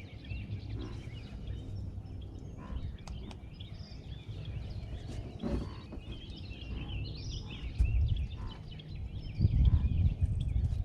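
Small birds chirping and singing over a steady low rumble, with a few short knocks and clicks and louder low swells of rumble near the end.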